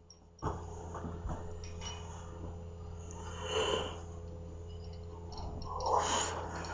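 A metal spoon scraping and scooping powder from a small box and shaking it into a wire sieve over a glass bowl, giving two rough rustling swells about three and six seconds in over a steady low hum.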